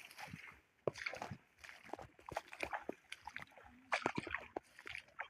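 Irregular splashing and sloshing of water, in many short uneven strokes.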